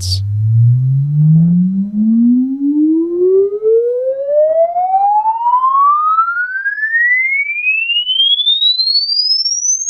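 Sine-wave sweep played through a Definitive Technology Demand D7 bookshelf speaker: a single pure tone gliding smoothly and steadily upward in pitch, from a low hum to a high whistle, with faint overtones above it. It is a frequency-response measurement signal.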